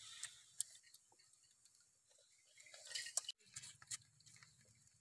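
People chewing and pulling apart roasted goose meat with their hands: faint scattered clicks and mouth smacks, with a busier run of clicks about three seconds in.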